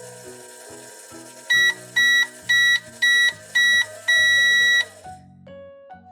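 Microwave timer beeper: five short, high, loud electronic beeps about half a second apart, then one longer beep, as the cycle finishes. Light background music plays under it and stops just after the last beep.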